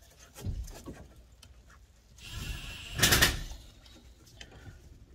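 Pliers working a spring hose clip on the rubber hose of a Nissan Micra's fuel filler neck. There is a knock about half a second in, then a scraping rasp that rises to its loudest about three seconds in as the clip is squeezed and slid along.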